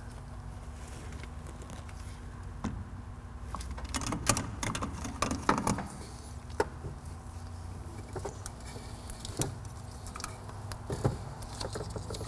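Hand tools clinking and scraping against a steel brake line and its fittings at a car's master cylinder: a flurry of clinks and rattles in the middle, then single sharp clicks every second or two, over a low steady hum.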